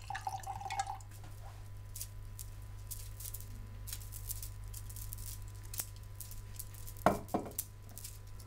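Red wine poured from a glass bottle into a stemmed wine glass: a short glugging tone at the start, then a thin trickle with small splashes and ticks. A couple of knocks about seven seconds in as the bottle is set down on the countertop, over a steady low hum.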